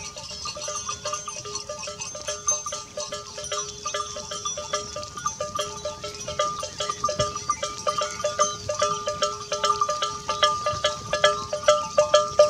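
Bells on a herd of goats clanking as the animals move, many short ringing notes at a few pitches that grow denser and louder near the end, with goats bleating.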